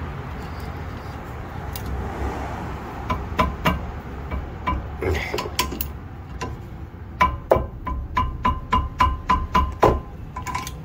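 Ratchet wrench tightening a brake caliper bolt: a few scattered clicks and knocks, then from about seven seconds in an even run of metallic ratchet clicks, about three a second, each with a faint ring.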